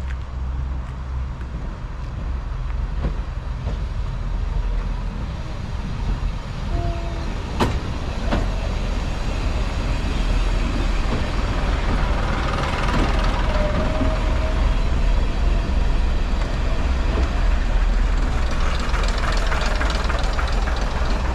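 Diesel multiple unit running into the platform, its engines rumbling and growing louder as it draws close and passes. A sharp click about a third of the way in, and brief thin squeals from the wheels or brakes.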